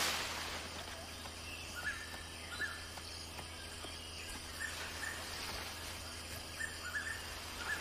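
Faint forest ambience: a steady low hum under a light hiss, with short high chirps, often in pairs, recurring every second or two.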